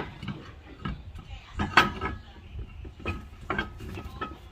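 Irregular metallic clinks and knocks of tools and parts being handled during wheel and brake work, several ringing briefly, the loudest about two seconds in.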